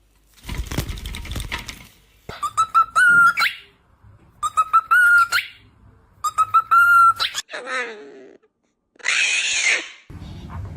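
Pet parrot whistling the same short phrase three times, each a held tone that rises at the end, followed by a falling call and a harsh squawk near the end.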